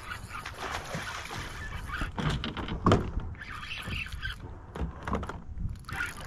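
Irregular knocks and handling noise in a small jon boat over a low rumble, the loudest knock about three seconds in, while a hooked bass is being fought.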